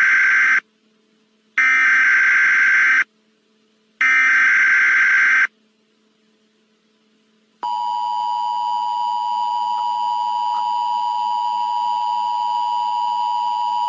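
Emergency Alert System SAME header: three identical bursts of warbling data tones, each about a second and a half long, the first already under way. After a pause of about two seconds, the two-tone EAS attention signal starts and holds steady.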